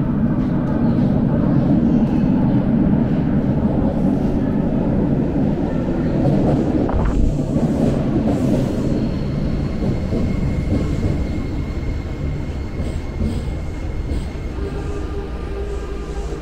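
Toei Oedo Line linear-motor subway train pulling into the platform and braking to a stop: a loud rumble that eases as it slows, with one sharp clack about seven seconds in and a steady high whine in the second half.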